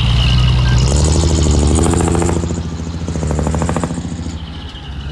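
Diesel engine of heavy earthmoving machinery running under load. Its pitch steps up about a second in, and it eases off near the end.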